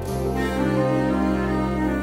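Slow, sad background music with held low notes; a new chord comes in at the start.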